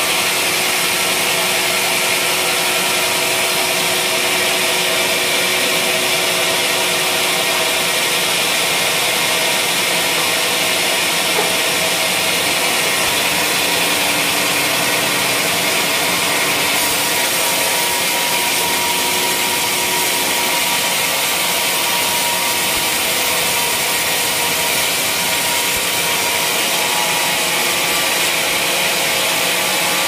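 Band sawmill blade cutting lengthwise through a wadang (bayur, Pterospermum javanicum) log: a loud, steady, continuous sawing noise.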